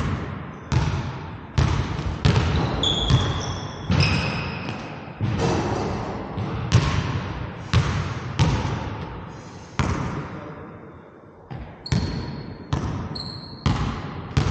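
Basketball dribbled on a hardwood gym floor, about one bounce a second, each bounce echoing in the large hall, with a few short high squeaks of sneakers on the floor. The dribbling breaks off for about a second and a half about two-thirds of the way through.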